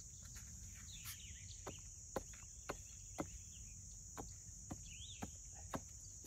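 A small hand hammer striking repeatedly at the ground, sharp blows about two a second from about a second and a half in. A steady high cricket drone runs under them.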